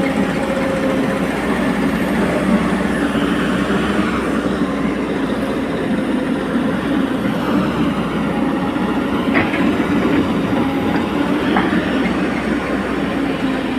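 Excavator's diesel engine and hydraulics running steadily with a constant hum, with a few faint knocks in the second half.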